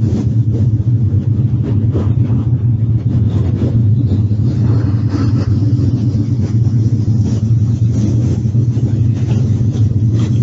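Loud, steady low rumbling drone with a hiss over it, a film's ominous sound-effect ambience for a fiery hell scene.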